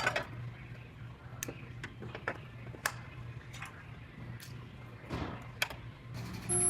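Scattered light clicks and knocks, about half a dozen spread over a few seconds, over a steady low hum: hand work on metal parts of the car body.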